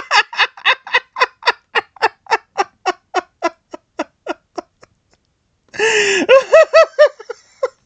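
A person laughing hard: a long run of quick, even laugh pulses, about three and a half a second, fading away over four to five seconds, then after a short pause a louder burst of high-pitched laughter.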